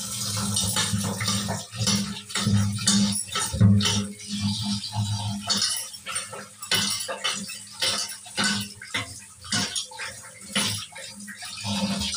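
Tap water pouring into a steel bowl of raw meat pieces in a stainless-steel sink, splashing steadily, with frequent small clinks and knocks as a hand rinses and stirs the meat against the bowl.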